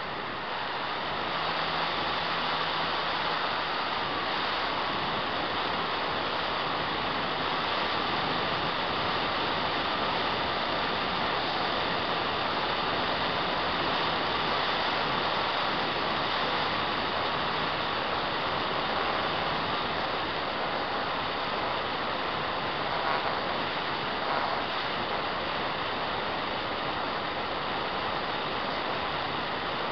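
Steady wind rush over the onboard camera's microphone mixed with the faint steady whine of the Apprentice RC trainer plane's electric motor and propeller in flight. The noise swells slightly about a second in.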